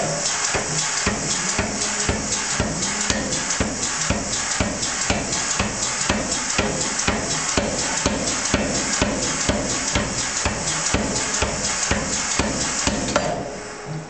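Power hammer striking a red-hot iron ball in a spherical swage die in a fast, steady run of blows, about four a second. The blows stop about a second before the end.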